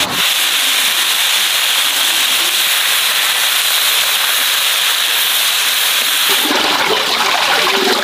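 Carp steaks sizzling in hot oil in a wok, a steady hiss. About six seconds in it gives way to water running from a bamboo pipe and splashing into a metal basin.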